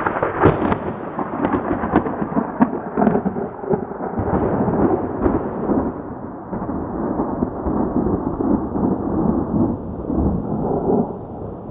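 Hail and rain coming down hard, starting suddenly, with sharp cracks of hailstones striking close by, most of them in the first few seconds.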